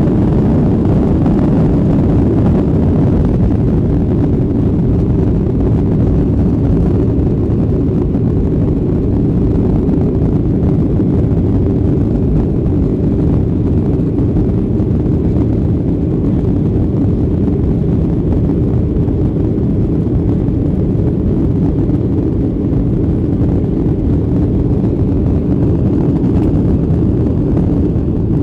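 Boeing 737 jet engines at takeoff power, heard from inside the passenger cabin as a loud, steady, low rumble while the plane leaves the runway and climbs.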